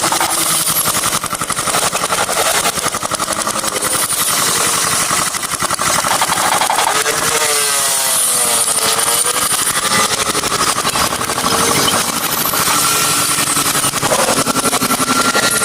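A motor running steadily with a rapid, even pulsing, and a pitched sound that dips and rises in the middle.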